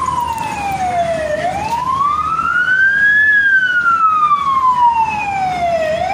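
Emergency vehicle siren on a slow wail, its pitch climbing for about two seconds, then sliding down for about two and a half, in a repeating cycle.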